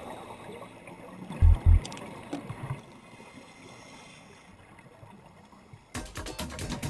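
Underwater noise picked up through a diving camera's housing: a steady wash with two loud, deep thumps close together about a second and a half in. A dense run of sharp clicks starts near the end.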